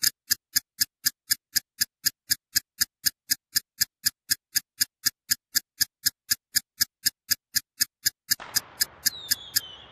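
Countdown-timer ticking sound effect: short, evenly spaced ticks, about four a second. Near the end a hiss comes in under the ticks, with a short falling whistle.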